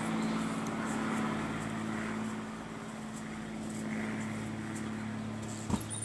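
Steady low drone of a distant motor, holding one pitch and slowly fading a little. A single sharp click comes near the end.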